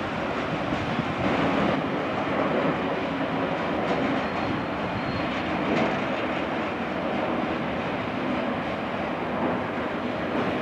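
A freight train of cylindrical tank wagons rolling along the yard tracks, a steady rumble of wheels on rail with a few faint clicks.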